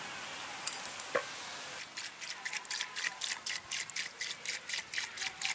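Water poured in a thin stream onto raw chicken legs in a steel bowl. From about two seconds in it splashes in a quick, uneven run of spatters, several a second.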